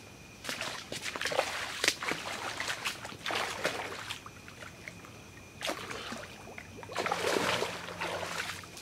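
Sloshing and splashing of someone wading through shallow lake water, in bouts, ending with splashing as a catfish is let go into the water. A steady high chirring of insects carries on faintly in the quieter gaps.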